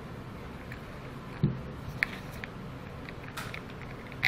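Plastic water-pump accumulator tank and its threaded pipe fittings being handled and turned over on a tabletop: a soft thump about one and a half seconds in and a few light clicks.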